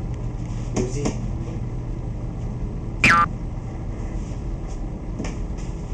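A short, high-pitched vocal squeal about three seconds in, the loudest sound, over a low steady hum. There are a couple of soft knocks about a second in.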